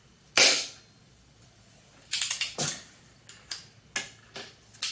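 Sharp metallic clicks from a torque wrench being worked as a breaker bar on an engine bolt: one loud click about half a second in, then a run of smaller clicks and clacks from about two seconds in.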